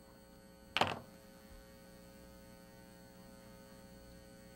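Faint, steady electrical mains hum, with one short sharp sound about a second in.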